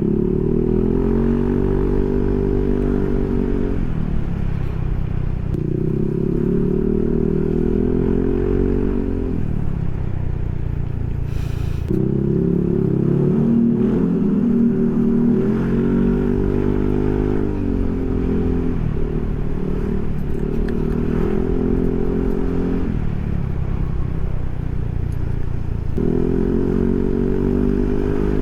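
Yamaha NMAX scooter's single-cylinder four-stroke engine running through a Pro Liner SR Neo Silent aftermarket exhaust. Its note rises and holds under throttle, then falls away as the throttle closes, about five times over.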